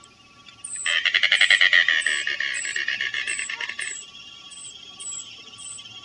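Anhinga giving its rapid clicking, rattling call, starting about a second in and lasting about three seconds before fading. A faint high chirp repeats steadily behind it.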